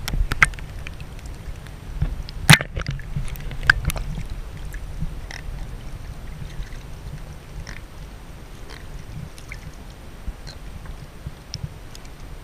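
Water sloshing and gurgling around a camera held at or just under the surface beside a boat's hull, with a few sharp knocks, the loudest about two and a half seconds in.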